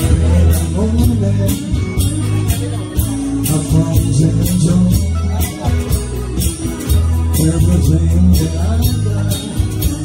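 Live band music: guitar and a singing voice over deep bass notes and a steady beat struck with drumsticks on a homemade kit of tin cans, a metal kettle, a pot lid and a cymbal.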